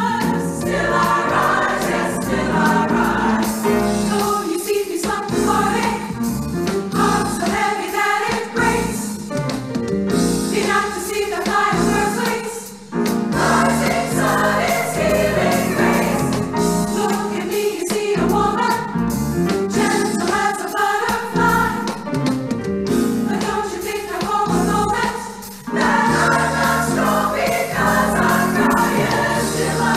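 Women's choir singing a gospel-style song, with two brief breaks in the sound about 13 and 25 seconds in.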